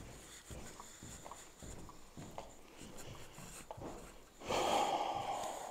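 Footsteps walking at an even pace, soft low thuds about two a second. Near the end comes a louder rush of noise lasting about a second.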